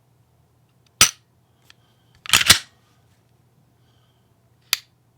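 Glock pistol trigger fitted with a Taran Tactical Grand Master connector, dry-fired: a sharp click as the trigger breaks about a second in, then a quick double clack of the slide being worked, and another sharp click near the end.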